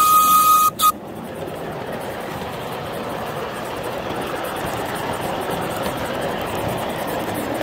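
The steam whistle of a 5 inch gauge live steam locomotive, blown as a steady single note that stops about a second in after one short extra toot. The train then runs on with a steady rolling noise of its wheels on the rails.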